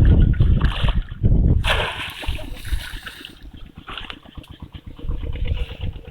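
Water splashing and sloshing, with heavy low thumps in the first second and a half and a sharp splash just before two seconds. After that comes a fainter, rapid rattling texture.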